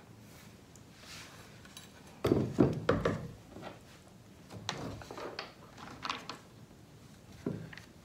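Knocks and clatter of a metal saw-blade guard being handled and set against a wooden workbench, a burst of several sharp knocks about two seconds in, then a few lighter knocks.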